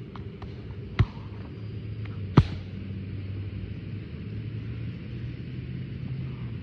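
Two strikes with boxing gloves landing on Muay Thai pads strapped to a tree, each a sharp smack, the second one louder, about a second and a half apart, over a steady low hum.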